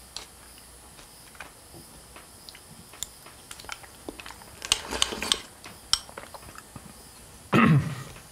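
Chopsticks clicking and tapping against a small bowl as someone eats, in scattered light clicks with a busier run about halfway through. Near the end comes a louder short sound that falls in pitch.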